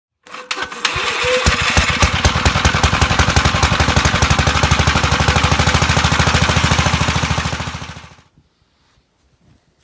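Small engine running with a fast, even firing beat, starting abruptly and dying away about eight seconds in.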